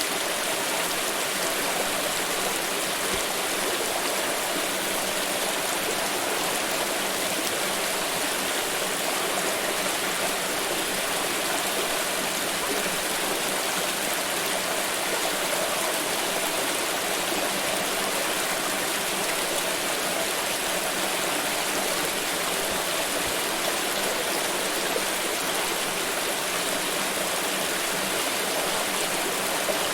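Water flowing steadily, a continuous even rushing noise with no breaks.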